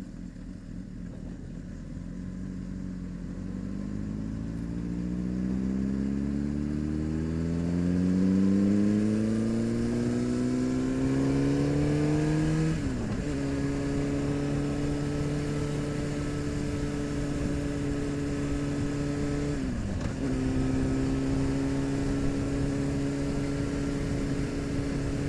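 Honda CBR600RR inline-four motorcycle engine pulling under throttle, its pitch rising steadily for about ten seconds. It drops sharply at an upshift about 13 s in, holds steady revs, drops again at a second upshift about 20 s in, then holds steady.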